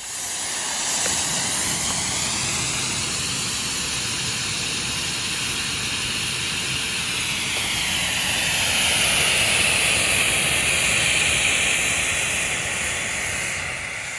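Potassium nitrate and sorbitol rocket candy burning in a foil-wrapped film canister, giving a loud, steady hiss of exhaust gas jetting out. It swells a little past the middle and dies away near the end as the propellant burns out.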